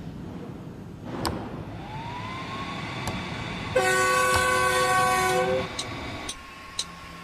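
A chorded train-style air horn sounds for about two seconds, about four seconds in. Before it there is a rising whine and a few sharp clicks.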